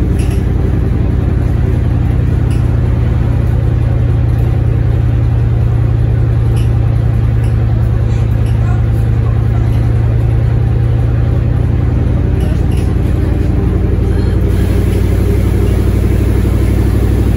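LiAZ-677MB bus's V8 engine running steadily, its note shifting about thirteen seconds in.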